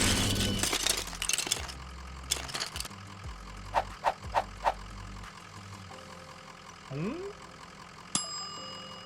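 Cartoon-style sound effects for a LEGO stop-motion animation. A noisy clatter fades at the start, three short beeps come about four seconds in, a quick rising whistle follows near seven seconds, and a bell-like ding rings out a little after eight seconds.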